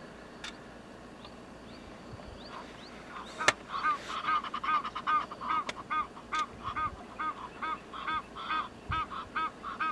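A bird calling in a long, even series of short calls, about three a second, starting about three seconds in, with a single sharp click just before.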